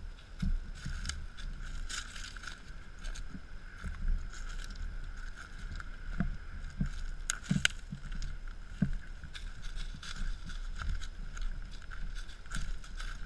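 Paws of a Belgian Malinois stepping through dry fallen leaves and twigs: scattered crackles and rustles, over a low rumble of movement on the microphone and a steady faint high hum.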